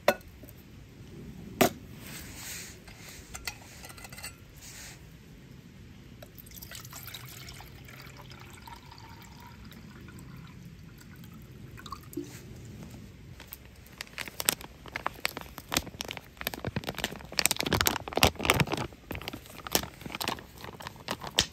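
Water poured from a stainless steel vacuum bottle into a metal camping mug, a steady pour for several seconds in the middle. Near the end comes a louder run of crinkling and rustling.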